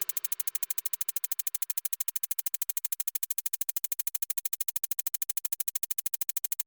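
Rapid, even electronic ticking from the background music, about a dozen pulses a second, that cuts off suddenly near the end.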